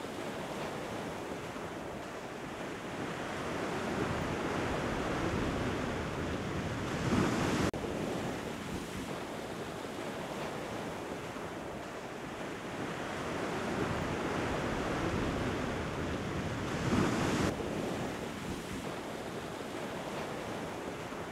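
Ocean surf breaking and washing up a sandy beach, with wind buffeting the microphone. The surge swells to two louder peaks, about seven and seventeen seconds in, each cut off suddenly.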